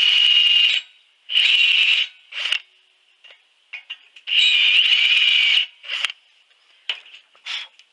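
Cordless drill driving a countersink bit into a welded steel bracket, run in short pulls of the trigger: three runs of about a second each, the longest near the middle, with several brief blips between and after.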